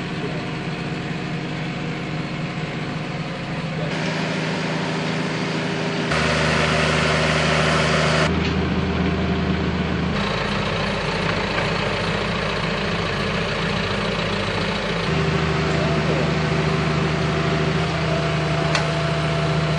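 Diesel engines of a farm tractor and a Bobcat mini excavator running steadily, in a string of short clips, with the engine tone changing abruptly at each cut.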